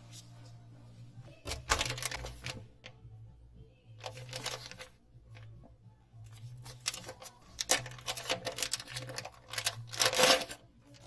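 Hands handling an aluminum badge holder wallet and its packaging: bursts of sharp clicks, taps and rustling in three spells, the loudest near the end.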